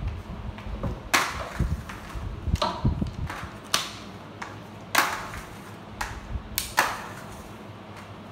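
Flat mop pushed and knocked about on a tiled floor, with flip-flops slapping the tiles: about eight sharp, irregular knocks and slaps, some with a short swish.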